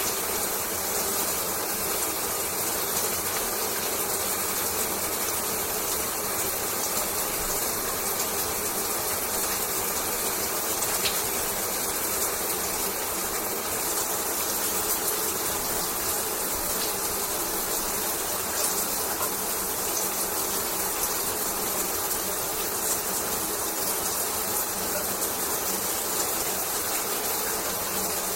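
Shower water running: a steady, even hiss of spray falling, with fine crackle from the drops.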